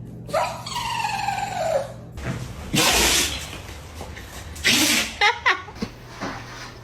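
A dog sneezing: two short, sharp sneezes, one about three seconds in and one just under five seconds in. Before them, starting about half a second in, comes a drawn-out call that falls in pitch.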